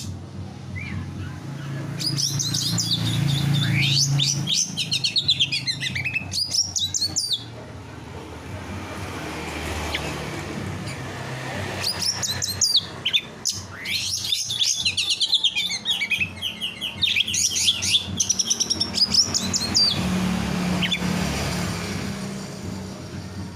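A songbird singing in two long bouts of rapid high trills and warbling phrases, over a low steady hum.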